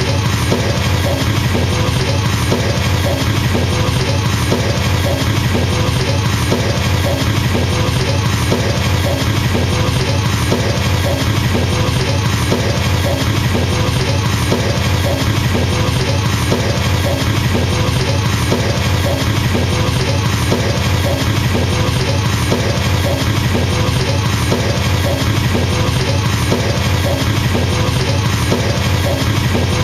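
Drum kit playing an unbroken, very fast double bass drum roll, a steady machine-gun drumming that never lets up, with a repeating pattern played over it.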